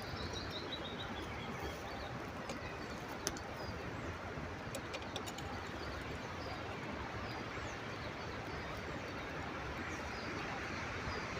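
Small birds chirping: a quick falling run of high chirps at the start, then scattered single chirps, over a steady outdoor background hiss, with a sharp click about three seconds in.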